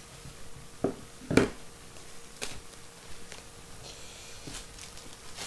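Unpacking noises: a few light knocks and clicks as a plastic computer speaker and its parts are handled on a desk, the loudest about a second and a half in. Faint crinkling of a plastic wrapping bag comes near the end.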